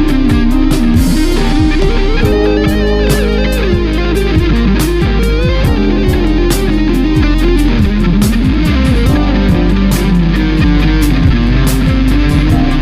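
Electric guitar played through a Line 6 Amplifi FX100 modeling processor. Lead notes waver with vibrato and bends about two to four seconds in, over a steady drum beat.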